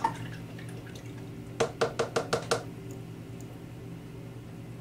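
A paintbrush being rinsed in a cup of water, knocking against the side of the container about six times in quick succession around two seconds in, over a low steady hum.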